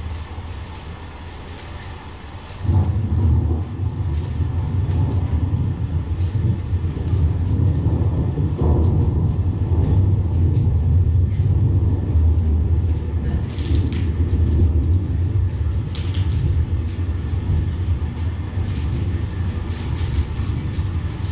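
Deep, steady rumbling soundscape from the performance's sound track, jumping abruptly louder about two and a half seconds in, with scattered faint crackles above it.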